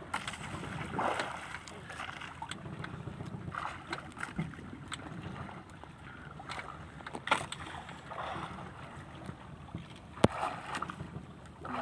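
Small outrigger fishing boat at sea: a steady rumble of wind and water around the hull, with faint voices and scattered clicks. There is a sharp knock about seven seconds in and a louder one near the end.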